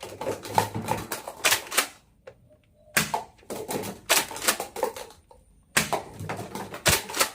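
Nerf Elite 2.0 toy blaster firing in three bursts of rapid, clattering clicks, each lasting about two seconds.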